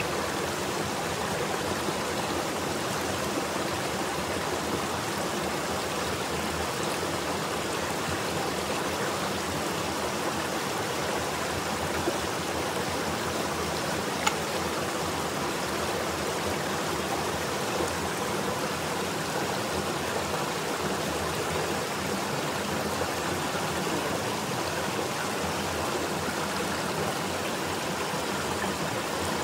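Steady rush of flowing stream water, with a couple of small clicks about twelve and fourteen seconds in.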